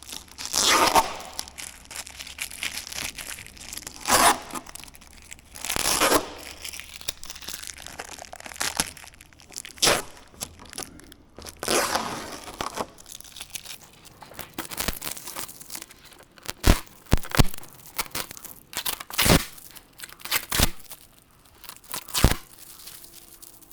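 Packaging being torn and pulled off a new aircraft windscreen: repeated tearing and crinkling swishes, turning to sharper snaps and crackles in the second half.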